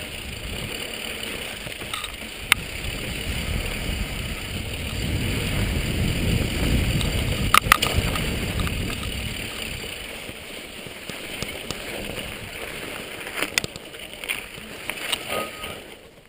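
Mountain bike riding over a rough trail: a low rumble of tyres and wind on the camera microphone, louder about midway, with several sharp knocks and rattles from the bike.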